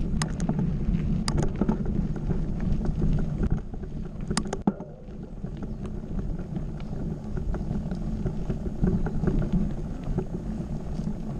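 Wind buffeting the microphone and the steady rumble of a mountain bike's tyres on a dirt singletrack, with a few sharp clicks and rattles from the bike.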